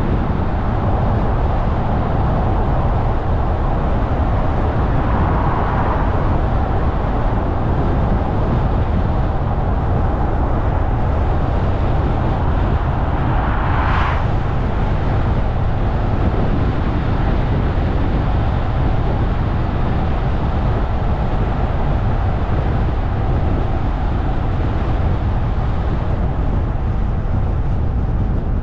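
Car driving at road speed: a steady low rumble of engine and tyre noise, with a brief hiss about halfway through.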